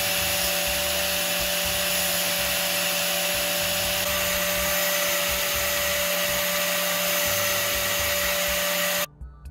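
Electric power tool running steadily with a constant motor whine and grinding hiss, used for sharpening a drill bit; it cuts off abruptly near the end.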